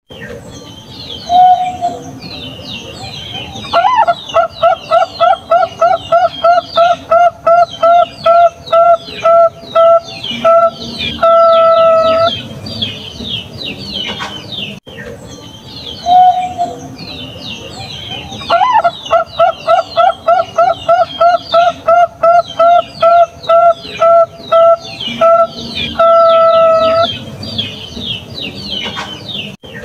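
Bangkok-type zebra dove (perkutut) singing its song twice: a short opening coo, then a quick run of about twenty clipped coos ending in one long held note. A constant high twittering of chirps runs underneath.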